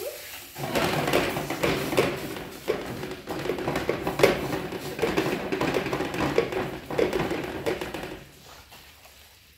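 Busy tapping and clattering over a noisy rush, lasting about seven seconds and dying away near the end.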